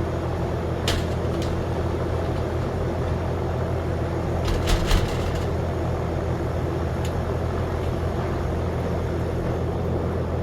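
Steady low machine hum, with sharp clicks from the lock's metal parts and screw being handled: once about a second in and a quick cluster near the middle.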